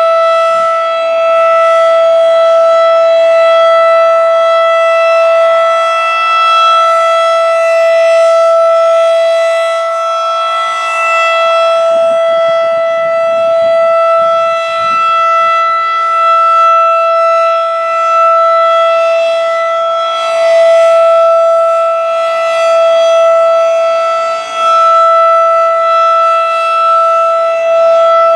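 Federal Signal 2001 rotating warning siren sounding a steady single tone at full speed during a siren test. The pitch holds level with no wail, and the loudness rises and falls slightly.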